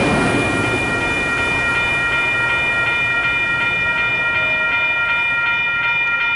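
Railroad grade-crossing warning bells ringing steadily with a quick repeating pulse. The low rumble of a passing Caltrain commuter train fades away in the first second.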